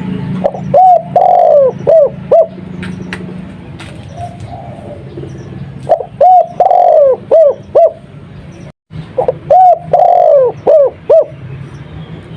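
Spotted dove (tekukur) cooing in the Madura 'kuk 2' style: three song phrases, each a few short coos around one longer drawn-out coo that falls at its end.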